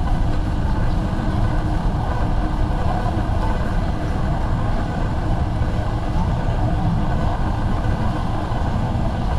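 Busy warehouse-store ambience: a steady low rumble with a murmur of many shoppers' voices.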